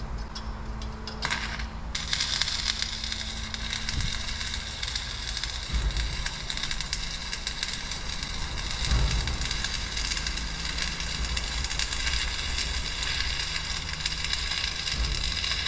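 Electric arc welding on a steel gate hinge: a brief first strike of the arc about a second in, then a steady dense crackling sizzle as the weld is run.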